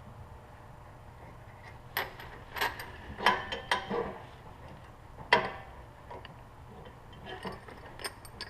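Metal parts clinking and knocking as a motorcycle's rear axle, washer and wheel adjuster are worked into place: a quick run of sharp clinks in the middle, the loudest single knock about five seconds in, and a few lighter clicks near the end.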